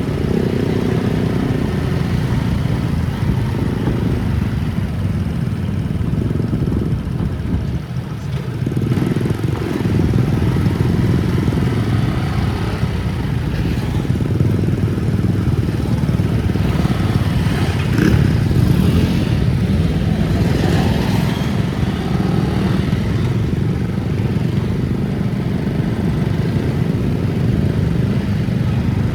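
A vehicle on the move, engine and road noise with a steady low rumble, dipping briefly about a third of the way in.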